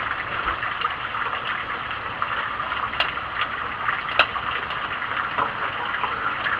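Rocket stove burning with a strong draft: a steady rushing hiss of air drawn through the fire, with a couple of sharp clicks from the wood fuel a few seconds in.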